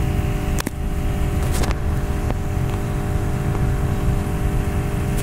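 A steady low machine hum and rumble with a few faint clicks.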